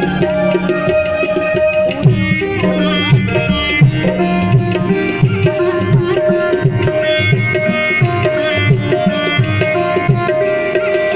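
Indian music with a steady tabla beat under a held, sitar-like plucked-string melody, played loud over a public-address sound system.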